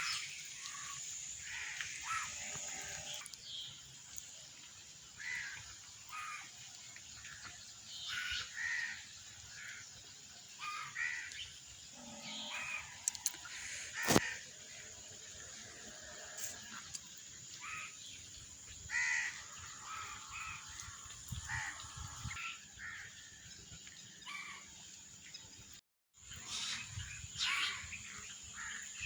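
Birds calling outdoors in many short, separate calls, over a steady high-pitched hiss. There is one sharp click about halfway through, and the sound drops out briefly near the end.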